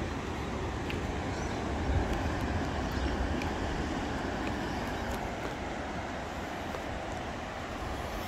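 Steady rushing of ocean surf breaking on the beach, with a low rumble of wind on the microphone.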